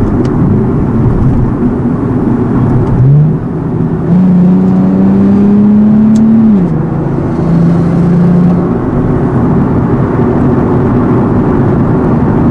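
Nissan 370Z's 3.7-litre V6 through a Speed Daddy full exhaust while driving. The engine note climbs under acceleration about three seconds in and holds a loud, slowly rising tone. It drops abruptly around six and a half seconds, then settles into a steady drone.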